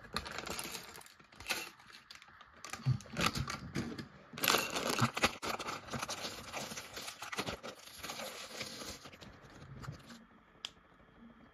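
Clear plastic bag of Lego pieces crinkling and rustling as it is opened and handled, with the small plastic bricks inside rattling and clicking against each other. It fades near the end.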